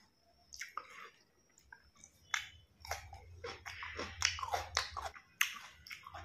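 Close-up chewing of a mouthful of food: irregular wet clicks and smacks of the mouth, sparse at first and coming thick and fast from about two seconds in.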